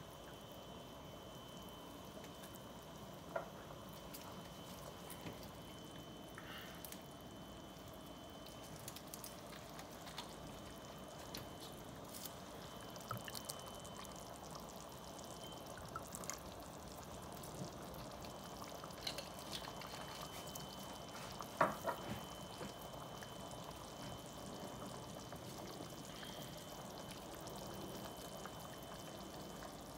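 Butter seafood-boil sauce simmering in a stainless steel pot, a faint steady bubbling, with scattered small clicks and taps and a brief cluster of sharper clicks a little past two-thirds of the way through.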